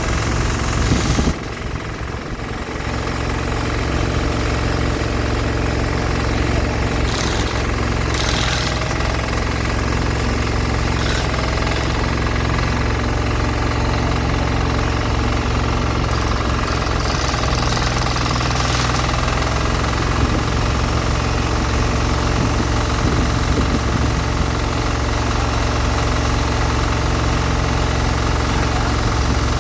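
Heavy diesel engine running steadily, with a short drop in level about a second in before it builds back up.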